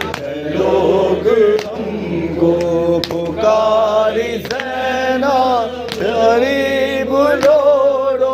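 Male voice chanting a noha, a Shia lament for Muharram, in a slow melody of long drawn-out notes without a break. A short sharp slap keeps time about every second and a half.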